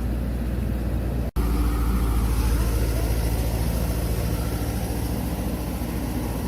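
Excavator's diesel engine running steadily at a low, even pitch, with a sudden brief dropout about a second in.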